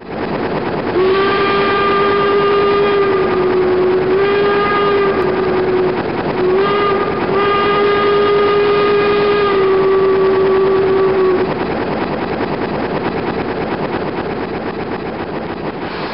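Steam locomotive whistle blowing two long, slightly wavering blasts, each about five seconds, over the steady rumble of a train. The whistle stops about eleven seconds in and the rumble slowly fades.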